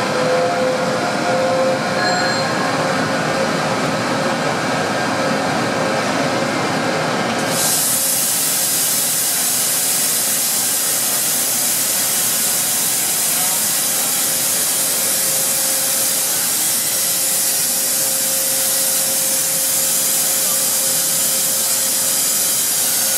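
Skoda SK 50A vertical turning lathe running with its large table turning, giving a steady whine. About seven and a half seconds in a loud, steady hiss starts suddenly and carries on over the machine.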